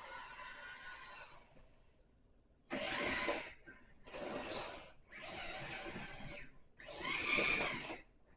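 Small RC excavator's hydraulic pump motor running in four separate bursts of about a second each, with short pauses between, as the controls are worked; a fainter run comes at the very start.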